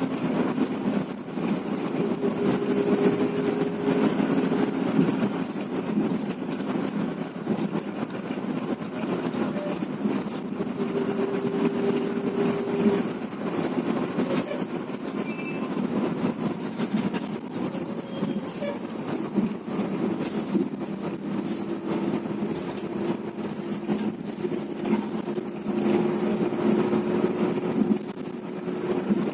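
Bus on the move: engine running under steady road noise, its note shifting now and then as the speed changes.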